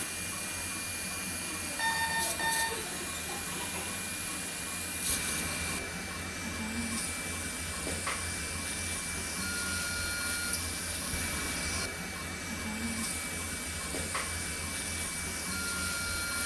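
Operating-room equipment background: a steady hiss and hum with a thin high whine. Short electronic beeps sound twice about two seconds in, and longer single beep tones come around ten seconds in and again near the end.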